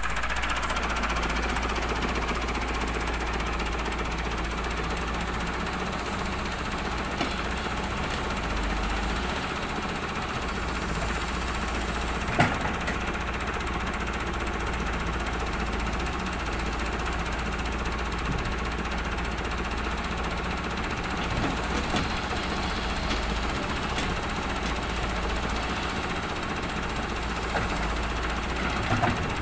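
Volvo EW145B wheeled excavator's diesel engine running steadily as it digs, with a sharp knock about twelve seconds in.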